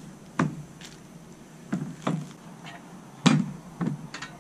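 Exhaust pipes and a steel mounting bracket knocking against a plastic table as they are set down and moved: about six separate knocks, the loudest a little past three seconds in.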